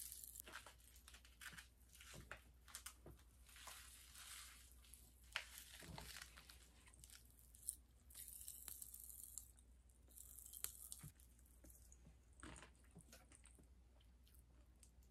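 Pop Rocks popping candy crackling in the mouth: faint, irregular tiny pops with patches of fizzing hiss.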